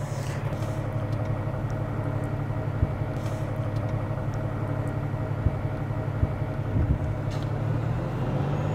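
Diesel engine of a Smeal 100-foot aerial ladder truck running steadily at idle, with a few faint clicks. About eight seconds in it steps up slightly in pitch and loudness as high idle is engaged to drive the ladder.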